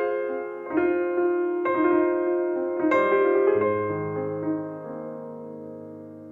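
Slow background piano music: chords struck about once a second for the first three seconds, then left to ring and fade over held low bass notes.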